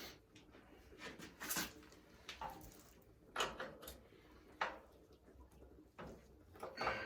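Scattered knocks and clatters of tools and parts being handled during a teardown, about eight irregular sharp strikes.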